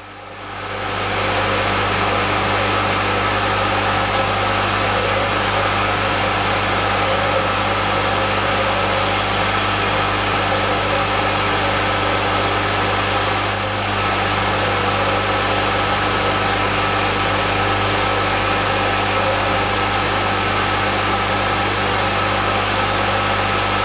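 Belt-driven cutter spindle of a wheel-cutting attachment on a Schaublin 102 lathe running steadily while cutting the teeth of a chronometer wheel. It is a constant low hum with a fainter high whine, easing off slightly for a moment about halfway through.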